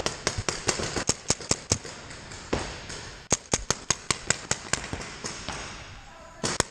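Paintball markers firing: sharp pops in uneven strings, with a fast run of about six a second starting about three seconds in and a short lull near the end.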